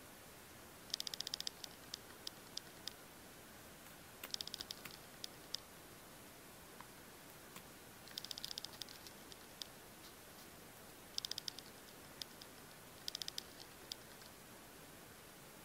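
Common wood pigeon pecking at bare soil: five short bursts of rapid, faint clicks, with a few single clicks between them.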